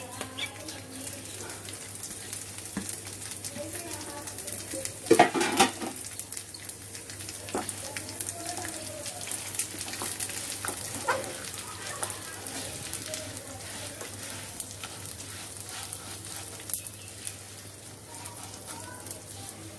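Gobindobhog rice and roasted mung dal sizzling as they fry in mustard oil, stirred around the pan, with scattered clicks and one brief loud clatter about five seconds in.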